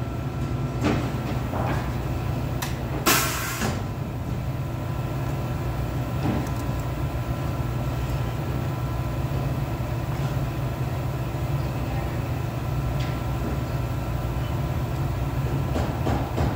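Steady low machine hum with a faint high whine. Over it come a few light clicks and knocks as the cables and clamps on an alternator test bench are handled, and a short hissing rush about three seconds in.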